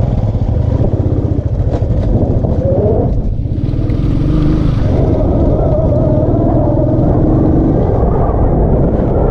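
Royal Enfield single-cylinder motorcycle engine running while riding, with a steady low rumble and its pitch rising and falling with the throttle.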